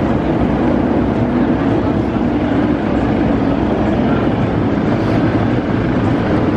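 Nemesis Inferno inverted roller coaster running, a steady rumbling roar of the train on its track.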